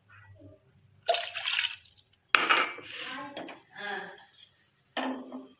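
Kitchen dishes and utensils being handled, clinking and clattering, with a sharp knock a little after two seconds in.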